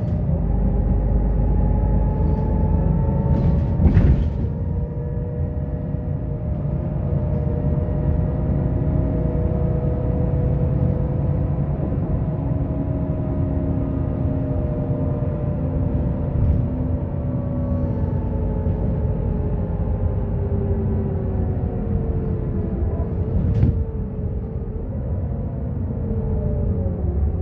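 Solaris Urbino 12 III city bus heard from inside the passenger cabin, running at speed with a steady drone and whining drivetrain tones, whose pitch slides down near the end. A sharp knock about four seconds in and another near the end.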